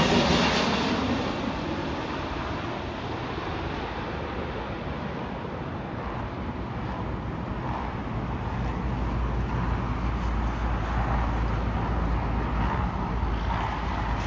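Jet airliner engine noise fading away over the first couple of seconds. After that comes a steady outdoor rumble, with a deeper low rumble building about halfway through.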